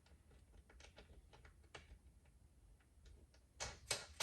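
Faint, scattered clicks and ticks of hands handling a heavy battery cable and its terminal hardware, with two louder sharp clicks near the end.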